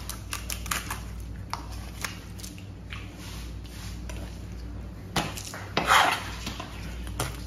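Filleting knife working a sea bream on a plastic cutting board: scattered light clicks and taps of the blade on fish and board, with a louder scrape about six seconds in as the blade is swept across the board. A steady low hum runs underneath.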